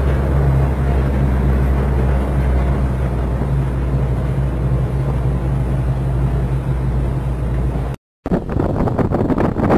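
A fishing boat's engine running at speed, a steady low hum over the rush of water from the hull. About eight seconds in the sound cuts out briefly, then rougher wind noise on the microphone and splashing take over.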